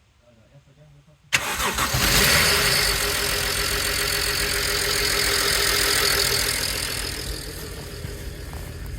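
BMW N53 3.0-litre straight-six in a 325i starting abruptly about a second in and running with a loud, hissy exhaust note, easing down near the end. The owner says the engine runs rough and makes strange noises from the exhaust.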